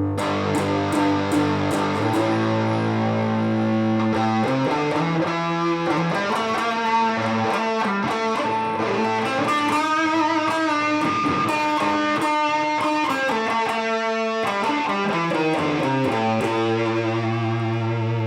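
Electric guitar played through a RAT-style distortion pedal into a transistor amplifier, with held distorted chords and a run of single notes in the middle.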